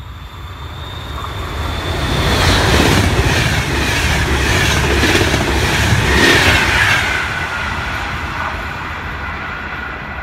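Electric-hauled passenger train with Intercity coaches passing close by. A rising rush grows into a loud run of rhythmic wheel clacks over the rail joints as the coaches go past. A high tone drops in pitch as the train passes, then the sound fades as it moves away.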